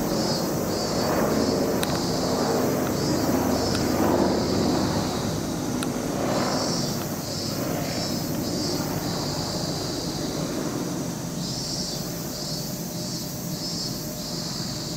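Steady rumbling outdoor background noise, with a high pulsing chirp that comes in three spells of a few seconds each.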